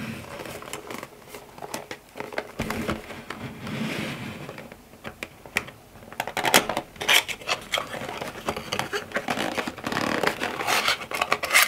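Fingers handling a cardboard perfume box: soft scraping and rubbing of the card, then from about halfway through a run of quick clicks and taps as the top flap is prised open.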